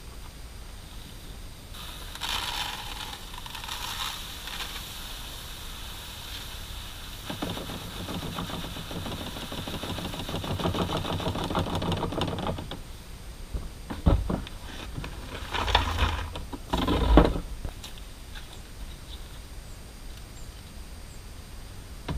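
Threshed hard red winter wheat and straw rattling and rustling in perforated plastic crates and tubs as they are shaken and tipped. There is a run of fast, even rattling in the middle, then a few loud knocks of plastic tubs and crates being handled and set down near the end.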